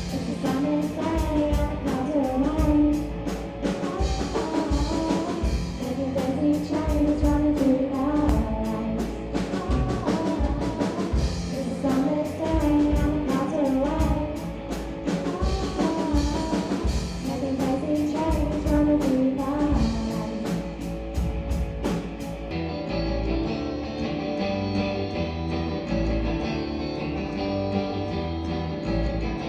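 Young rock band playing a song with singing, guitar and drum kit. About 22 seconds in it cuts abruptly to strummed guitar without drums, with a duller, muffled top end.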